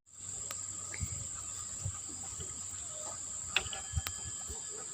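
Steady high-pitched chirring of insects, with a few faint clicks and taps of hands working.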